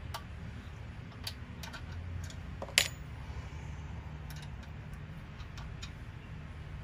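Scattered small metallic clicks and taps of a wrench and fingers working a carburetor mounting nut, with one sharper ringing clink about three seconds in, over a low steady hum.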